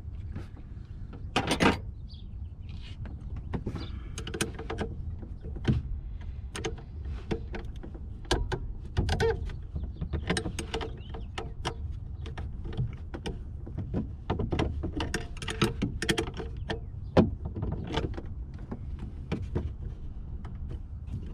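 Irregular clicks and small clattering knocks of a hand tool and plastic wiring connectors being worked loose at a Toyota Prius's 12-volt auxiliary battery, to disconnect it. A steady low rumble runs underneath.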